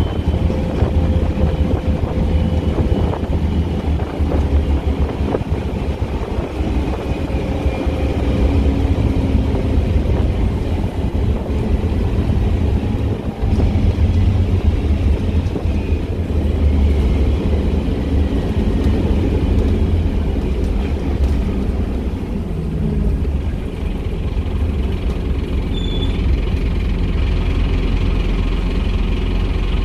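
Interior noise of a moving Scania N230UB single-decker bus, heard from the passenger saloon: a deep, steady drone from its diesel engine and drivetrain, rising and easing with the road. It settles into a more even low hum near the end.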